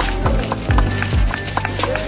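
Background music with a steady beat: deep bass-drum hits that drop in pitch, about two to three a second, under held notes.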